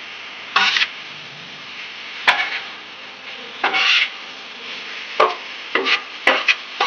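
Seasoned meat sizzling in a frying pan while a cooking utensil scrapes and stirs it in short, irregular strokes.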